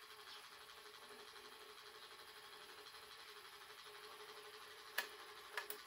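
Quiet bench with a faint steady hum, broken about five seconds in by a sharp click and then two lighter clicks: small metal parts being handled and set down.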